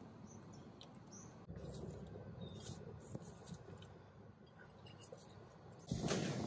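Fresh herb leaves being dropped by hand into a stainless steel stockpot of laksa broth, with faint light rustling and patting. About six seconds in, a plastic ladle starts stirring the broth, a clearly louder liquid stirring sound.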